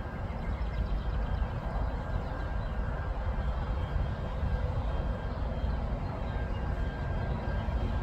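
Honey bee swarm on the move, thousands of bees in flight: a steady, even drone with a low rumble beneath it.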